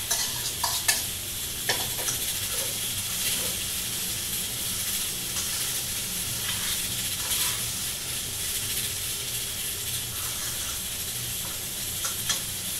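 Leftover rice with carrot and onion frying in a little lard in a pan on a gas stove, sizzling steadily while it is stirred with a spoon. A few scrapes and clinks of the utensil against the pan come in the first couple of seconds.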